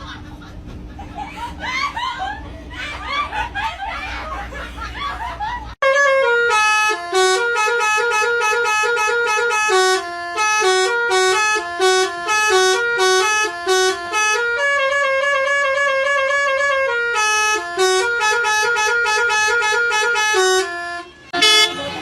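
Telolet basuri multi-tone bus horn playing a tune: a loud run of held, stepping notes, phrase after phrase with short gaps, cutting in suddenly about six seconds in. Before it comes a noisy stretch with many short rising chirps.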